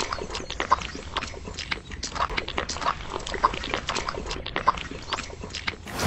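A small metal trowel scraping and dabbing through wet cement mix, making irregular short scrapes and clicks, several a second.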